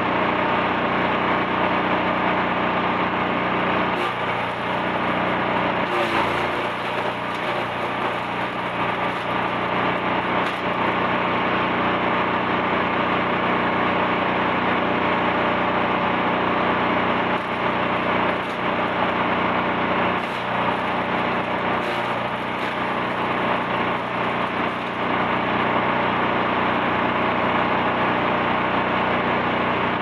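Gasoline four-stroke engine of a Brush Master 445cc wood chipper running steadily, with a few short knocks now and then.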